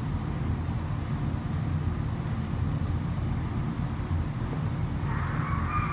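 A steady low rumble with no clear rhythm or pitch.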